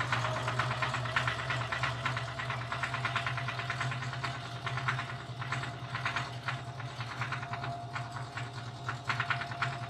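Electric household sewing machine running steadily at speed while top-stitching a fabric edge: a constant motor whine under a rapid, even clatter of the needle and feed.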